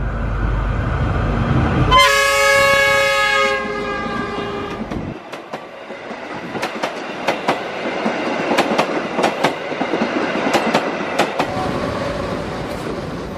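Diesel locomotive approaching with a low engine rumble, then sounding its horn for about a second and a half. Its passenger carriages then pass, the wheels clicking sharply over the rail joints.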